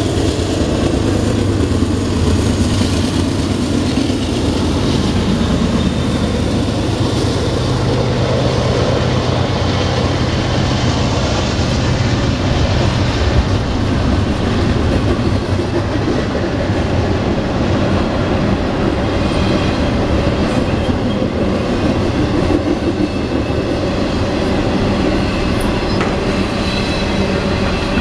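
Norfolk Southern freight train passing close by: the diesel locomotives' low drone dies away about halfway through, leaving the steady rolling clatter of double-stacked intermodal container cars, wheels clicking over the rail joints.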